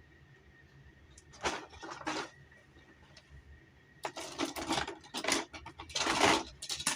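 Plastic action figures being handled: two short clacks, then a busy run of clattering and rustling from about four seconds in as figures are moved and set in place.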